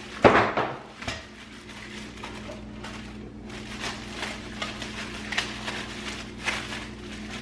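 Plastic wrapping crinkling and rustling as it is pulled off a cooking pot and its lid. The loudest rustle comes right at the start, followed by a run of small crackles.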